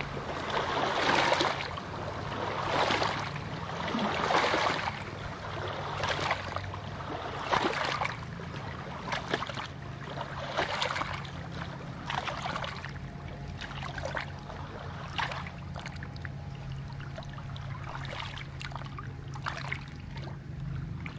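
Small lake waves lapping and splashing against shoreline rocks, coming in swells about every second and a half, stronger at first and gentler later on, over a steady low hum.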